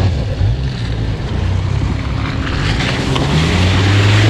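A 4x4's engine running at low revs while crawling over rough ground, its note firming up near the end, with a rushing noise joining it partway through.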